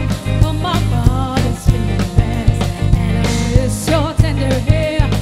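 Live pop band playing: a female lead vocalist singing over drum kit, electric guitar, keyboard and bass, with a steady drum beat.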